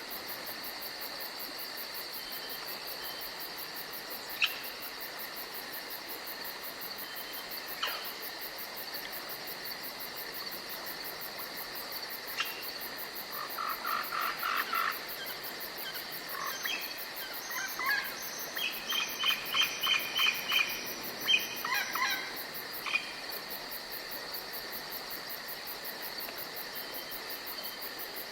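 Crickets chirring in a steady high-pitched drone. A bird calls twice with short single notes, then sings a run of quick repeated notes from about halfway through, stopping a few seconds before the end.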